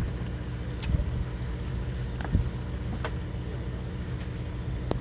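Steady low mechanical hum of a fishing boat's running machinery, with a few faint clicks and knocks of tackle or gear scattered through it.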